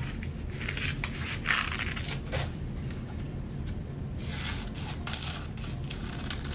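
Scissors cutting paper in a series of short snips with pauses between them, over a steady low hum.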